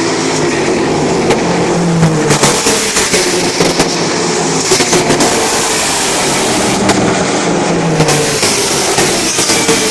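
American Le Mans Series race cars passing one after another at full throttle, their engines loud, with the pitch sliding as each car goes by. Sharp cracks come several times, around two to three seconds in, near five seconds and around seven to eight seconds.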